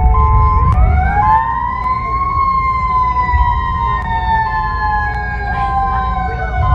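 Siren alternating between two steady pitches, then switching about a second in to a wail that rises and then slowly falls, over a steady low rumble.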